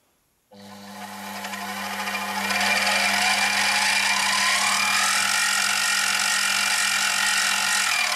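Sieg X2 mini milling machine's motor and spindle starting up, driven through a freshly fitted 3D-printed plastic drive gear. The whine rises in pitch as it speeds up over a few seconds, then runs steadily, and just at the end it starts to wind down. This is the first test run of the printed gear, which drives well.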